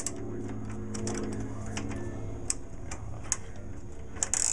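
A hand wrench clicking on a bolt as it is worked loose on a garden tractor's belt guard bracket. The clicks are scattered, with a quick cluster near the end, over a steady low hum.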